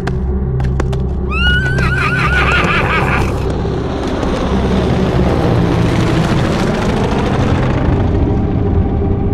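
A horse whinnying: one quavering neigh of about two seconds, starting a little over a second in. After it a rushing noise swells and fades, over a steady low drone.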